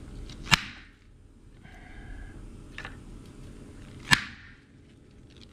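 Claw hammer striking a grommet setting tool, metal on metal, setting a grommet by flaring its barrel over the washer. Two loud sharp strikes with a brief ring, about three and a half seconds apart, and a lighter tap between them.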